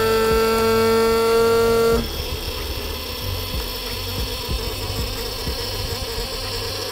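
Electric fuel pump running to pressurise the fuel system while the fuel pressure regulator is adjusted: a loud steady whine-like tone that cuts off about two seconds in, then a quieter steady buzzing whir.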